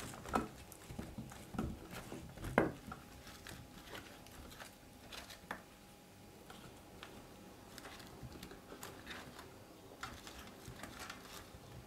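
Raw potato, onion and carrot pieces being moved and pressed into a metal baking tray by hand: scattered soft taps and clicks, with two louder knocks in the first three seconds.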